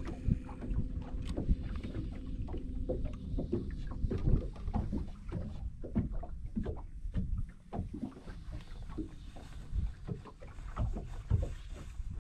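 Water lapping and slapping against a fishing boat's hull, with irregular knocks and clunks of movement in the boat. A faint steady hum stops about four seconds in.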